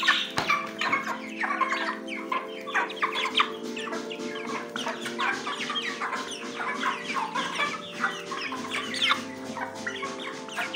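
A flock of broiler chickens clucking in many quick short calls as they feed together, over steady background music.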